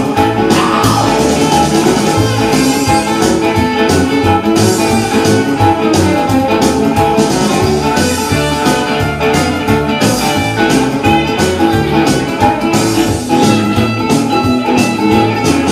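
Instrumental rock and roll record with a guitar lead over a steady beat and bass.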